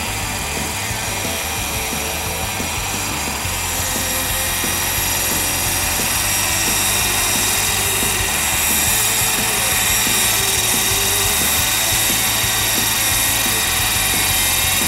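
Large-scale radio-controlled Bell 429 model helicopter coming in to hover and land. Its drive gives a steady high whine over the rotor noise, and the sound grows louder from about four seconds in. Background music plays under it.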